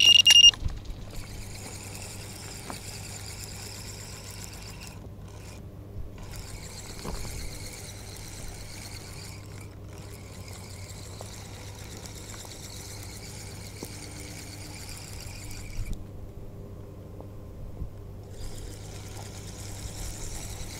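A small fishing reel is cranked to wind in line after a bite, a steady whirring that stops briefly twice and for about two seconds near the end. It opens with the last moment of a loud electronic beep, typical of a bite alarm.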